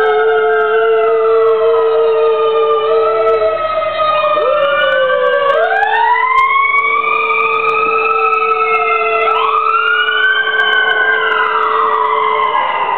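Performance music of several long, overlapping tones that slide slowly up and down like sirens over a steady held note. The held note breaks off about four seconds in, and two big rising swoops come near the middle and again later.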